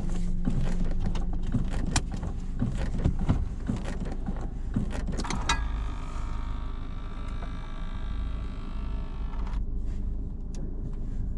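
Inside a 1990 Mercedes-Benz 230CE coupe: a run of sharp clicks and knocks for about five seconds. Then a steady electric motor whine starts suddenly, lasts about four seconds and cuts off, over a low steady hum.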